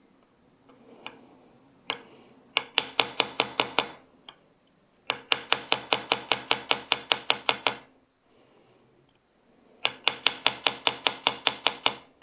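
Small hammer tapping a punch in quick, even strikes, about seven a second, in three runs of a few seconds each: drifting a pistol sight sideways into the slide's dovetail.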